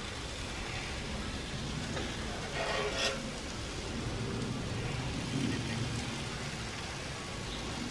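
Fish burgers, green asparagus and peppers sizzling steadily in butter on a grill's flat cooking plate, with a short scrape of a utensil on the plate about three seconds in.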